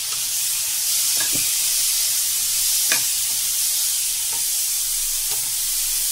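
Sweet corn kernels sizzling in a frying pan with soy sauce just added, stirred with a steel spoon. A steady hiss runs under a few clicks and scrapes of the spoon against the pan, the sharpest about three seconds in.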